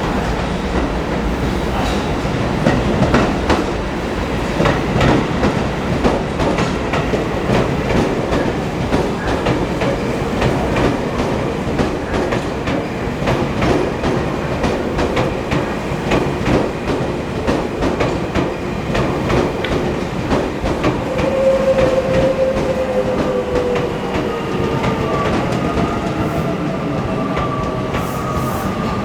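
Commuter train running over rail joints with a steady clickety-clack. In the last part a faint whine, pitched like the train's motors, slowly falls as it slows down.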